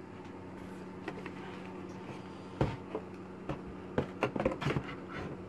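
Handling noises from a computer monitor being moved and turned: a scattering of short knocks and clicks, busiest in the second half, over a steady low hum.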